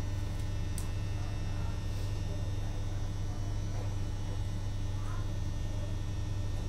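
Duewag B80C light-rail car's electrical equipment humming steadily, a strong low hum with a fainter higher buzz, holding one even pitch.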